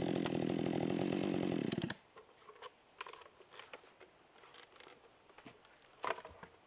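A chainsaw mounted in a chainsaw mill runs at full throttle ripping a pine log, then cuts off abruptly about two seconds in. After it stops come light footsteps and small knocks, with a sharper clunk near the end.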